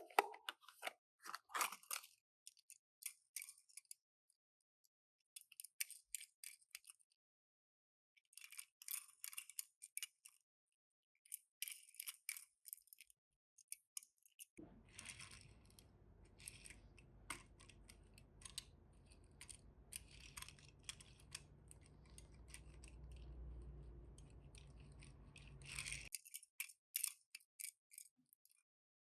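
Faint clicks and rustles of small toy cars and their packaging being handled, in short clusters every second or two. A low steady hum joins in for about ten seconds in the middle.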